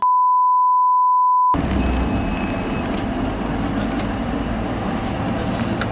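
A steady high beep, the test tone that goes with colour bars, for about a second and a half, then a sudden cut to the steady rumble of a bus heard from inside the cabin.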